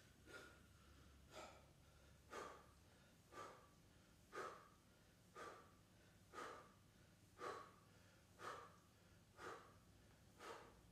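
A man's short, forceful breaths, one about every second, in time with each rep of a toe-tap crunch: breathing from exertion. They are faint.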